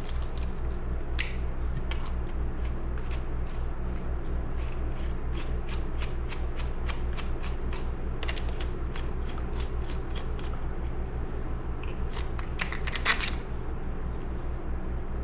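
Rapid, even clicking of a hand tool working out the carburetor mounting screws on a vintage chainsaw, about three clicks a second, with a few louder clicks. A low steady hum runs underneath.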